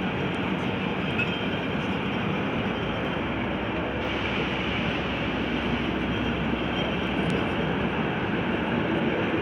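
A passing passenger train, heard as a steady rumble and rolling noise on the track.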